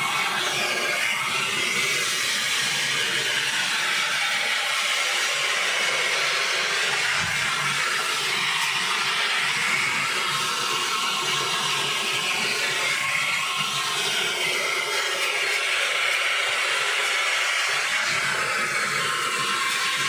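Handheld hair dryer blowing steadily, a constant rushing hiss of air that shifts slightly in tone as it is moved around the hair.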